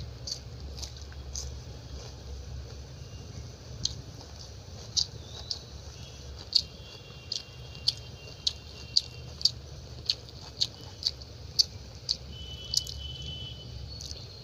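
A person chewing a mouthful of chicken curry and rice. Sharp, wet mouth clicks come irregularly at first, then about twice a second through the middle, over a steady low hum.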